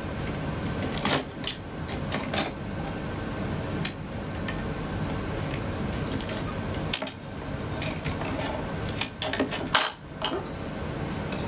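Scattered clicks and light clatter of hands unplugging internal cables and handling the parts of a Tektronix TDS3000 oscilloscope during disassembly.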